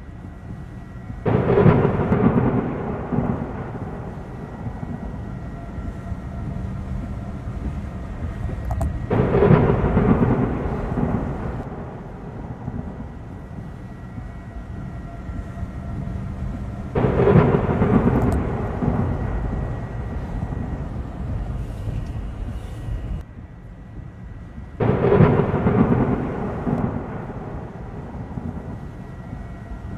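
Thunder: four sudden claps about eight seconds apart, each rolling off into a rumble that dies away over several seconds, over a steady low rumble.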